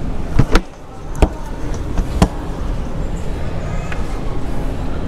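A few sharp knocks and clicks, two close together about half a second in and then single ones at about one and two seconds, as a motorhome's rear garage locker door is shut and latched, over a steady background of show-hall noise.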